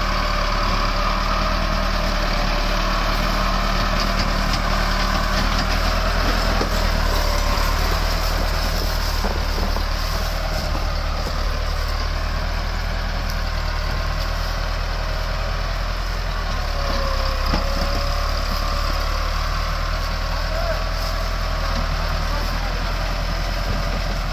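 Massey Ferguson 385 tractor's diesel engine running steadily under heavy load while it pulls an overloaded trolley of sugarcane.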